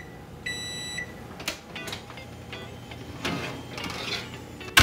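Electronic oven timer beeping once, a steady high beep, as the cooking time runs out. It is followed by scattered clicks and knocks from the oven and its metal baking sheet and wire rack being pulled out, with a sharp clank near the end.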